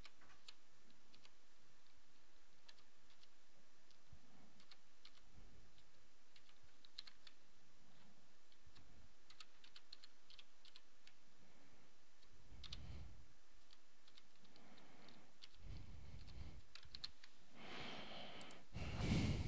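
Computer keyboard typing in short runs of quick, faint keystrokes over a steady low hiss. A louder noise swells just before the end.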